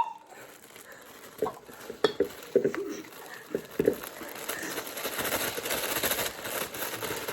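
Kitchen utensils and a mixing bowl being handled: a few light knocks and clicks, then a soft, steady rustling hiss for a couple of seconds, as of something poured or stirred in the bowl.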